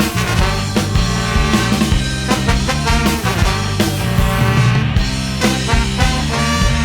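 A live band playing an upbeat tune in a ska and swing vein: electric guitar, bass and drum kit with a horn section of alto saxophone, trombone and trumpet, with steady drum hits throughout.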